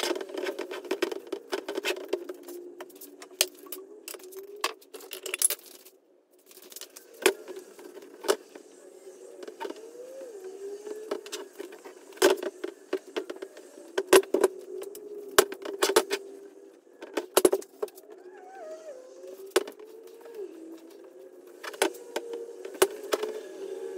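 Irregular clicks, taps and light rattles of a steering wheel being handled as a leather cover is worked onto it, with its metal frame knocking on the worktable, over a steady low hum.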